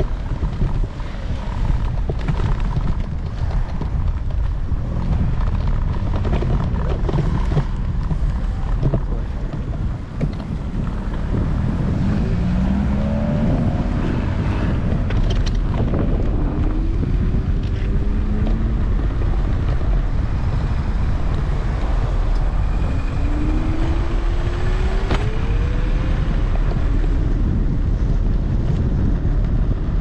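Wind buffeting a handlebar-mounted GoPro microphone over a steady low rumble from an electric scooter riding on pavement. A few faint rising tones come through around the middle and again later.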